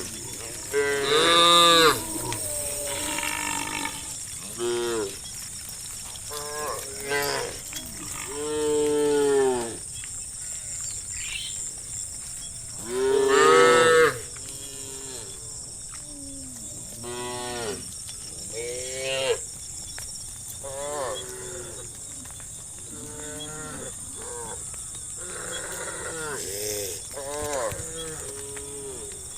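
A herd of cattle mooing: many separate and overlapping moos, each rising and then falling in pitch, the loudest about a second in and again near the middle. A steady high hiss runs underneath.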